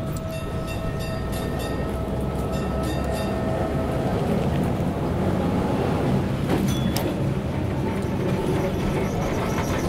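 Interior of a moving tram: a steady low rumble as it runs along, with a held whining tone for the first few seconds and a couple of sharp metallic clanks about two-thirds of the way through.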